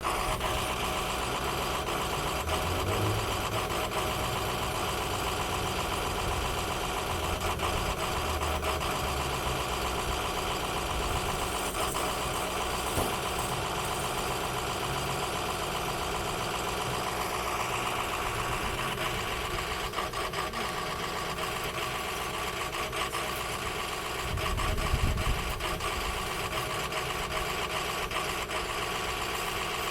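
Ford F-350's 6.0L Power Stroke V8 turbodiesel idling and sputtering unevenly, with a louder low rumble about 25 seconds in. The uploader thinks the rough running could be dirty or faulty injectors, or a fuel or sensor problem.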